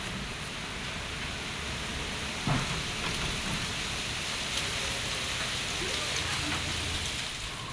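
Steady rushing hiss of a storm, rain and wind, with a single dull thump about two and a half seconds in.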